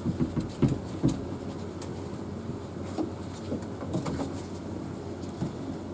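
Light clicks and knocks of a SharkBite depth-gauge and deburring tool and pipe being handled: several close together in the first second, then a few scattered ones, over a steady low hum.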